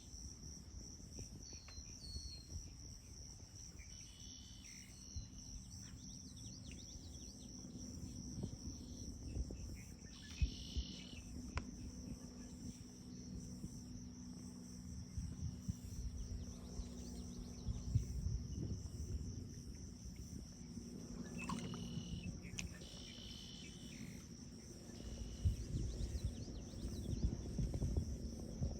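Steady high-pitched insect trill, finely pulsing, with a few short chirps scattered through and a low rumble underneath.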